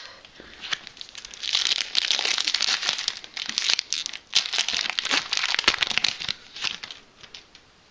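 Foil wrapper of a Yu-Gi-Oh booster pack crinkling and crackling as it is handled and torn open by hand, a dense run of rustles and sharp crackles starting about a second in and dying down near the end.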